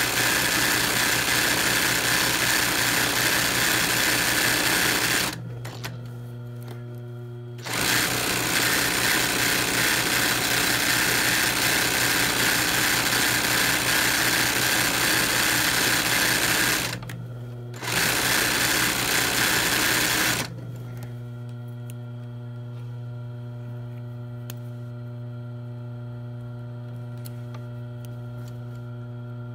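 Sewing machine stitching free-motion embroidery through cotton fabric in a hoop. It runs for about five seconds, pauses briefly, runs again for about nine seconds, pauses, then gives a short run and stops about twenty seconds in, leaving a steady hum.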